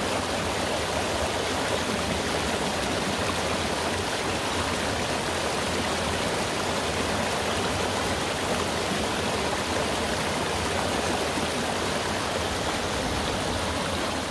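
Mountain stream flowing, a steady, even rush of water.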